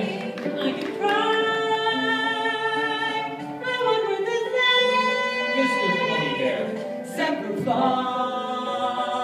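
Several voices singing together in long held chords, the chord changing every few seconds.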